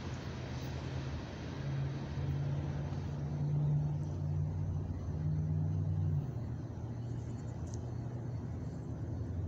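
Low, steady engine drone over a rumble, growing louder about a second and a half in and dropping away abruptly about six seconds in.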